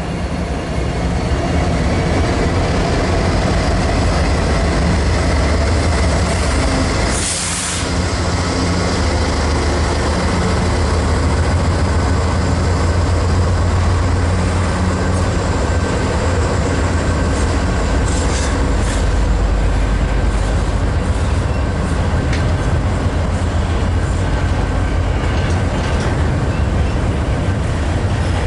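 Train running past at trackside: a steady, heavy low rumble with a deep engine drone underneath. It is broken once by a short click-like gap about seven seconds in.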